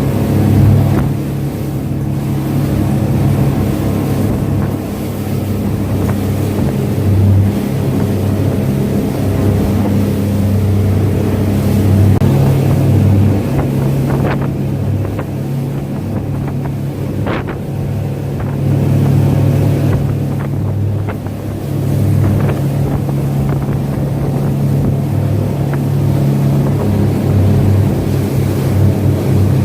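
Motorboat engine running steadily underway, a loud low hum that swells and eases a little, with wind blowing on the microphone.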